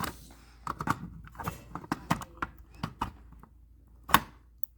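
Irregular plastic clicks and knocks of a 9-volt battery being fitted into the front-loading battery compartment of a Kidde KN-COPE-IC smoke and carbon monoxide alarm, with one louder knock about four seconds in.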